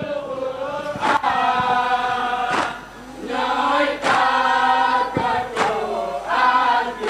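Boys' choir chanting a religious song in unison, in long held phrases, with a sharp beat-marking hit about every second and a half.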